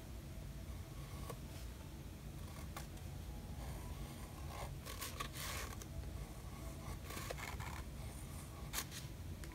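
Fine-tip Faber-Castell Pitt artist pen scratching on sketchbook paper in short strokes, with soft rustles of hands on the page.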